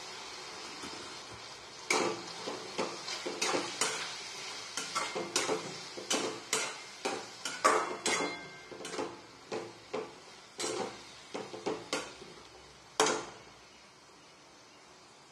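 Flat steel spatula scraping and stirring chopped round gourd and soaked moong dal in a dark metal wok, over a quiet sizzle. The stirring strokes begin about two seconds in, come about two a second, and stop a couple of seconds before the end, leaving the sizzle.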